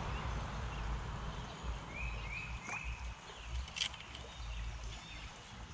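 Small stream running steadily over riffles, with wind rumbling on the microphone off and on. Three short high chirps come in quick succession near the middle, with a couple of light clicks.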